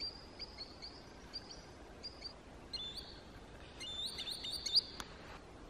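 Green sandpiper calling: a run of high whistled notes, first short and level, then quick series of upslurred notes. A single sharp click sounds about five seconds in.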